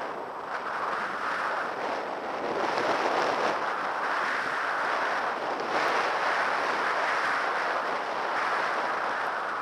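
Skis sliding and scraping over groomed, packed snow: a continuous hiss that swells and eases every second or two, with some wind on the microphone.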